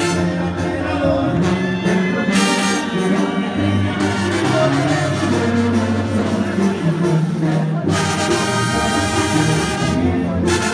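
Live regional Mexican band playing, with a tuba carrying the bass line under accordion and electric guitars, heard from the audience floor.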